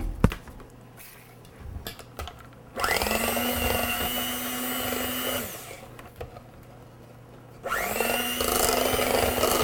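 Electric blender run in two bursts while mixing muffin batter. Each time the motor spins up quickly to a steady whine and holds for a few seconds.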